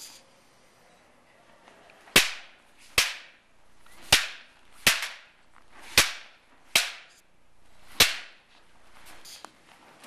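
Wooden Aikido practice weapons striking each other in paired attack-and-blend drills. There are seven sharp clacks, mostly in pairs under a second apart, each led in by a short rising swish of the swing.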